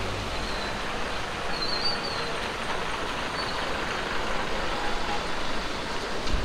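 Double-decker sleeper coach bus pulling in on a wet road: steady engine and tyre hiss.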